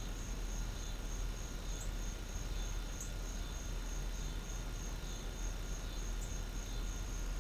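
Crickets trilling steadily: a high, evenly pulsed trill, with a few faint ticks.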